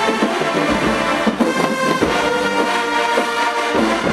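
HBCU marching band playing, led by a full brass section (trumpets and trombones) holding chords, with drum hits underneath.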